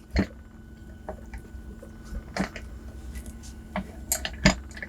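A few short, separate clicks and knocks from handling the just-picked ACE A527 padlock and the picking tools, over a faint steady hum.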